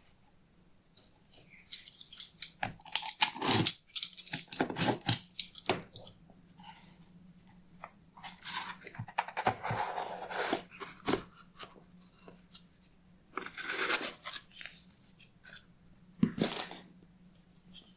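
Close handling noise: crackling, crunching and scraping in four bursts of a second or two each, with quick clicks, over a faint steady hum.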